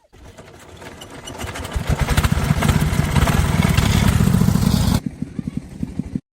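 A small vehicle engine running with a rapid pulsing beat, growing louder over the first two seconds, then dropping sharply about five seconds in and cutting out shortly after.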